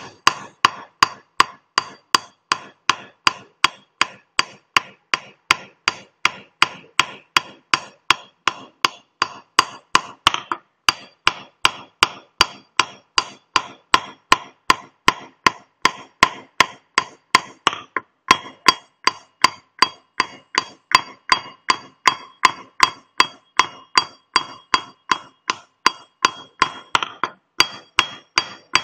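Hammer striking a steel chisel into a stone grinding slab (shil nora), a steady run of sharp blows about three a second, each with a short metallic ring. This is the traditional hand-cutting of the shil's face, here chiselling a fish design into the stone.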